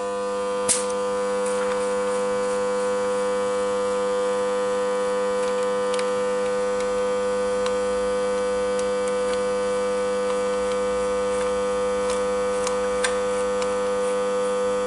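Steady electrical mains hum with a few light clicks as the compression tester's adapter is handled and screwed into a spark-plug hole.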